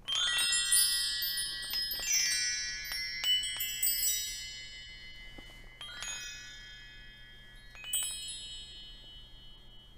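Chimes ringing: a cluster of bright, high metal tones struck together at the start, then single strikes about six and eight seconds in, each ringing on and slowly fading.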